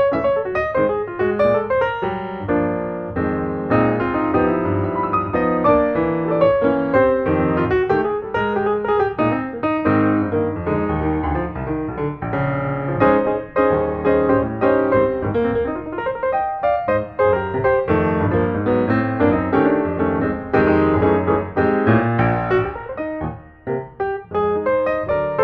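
Background piano music: a steady flow of notes with a continuous accompaniment.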